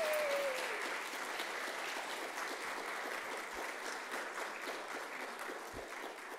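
Audience applauding, slowly dying away toward the end, with a voice briefly calling out on a falling pitch near the start.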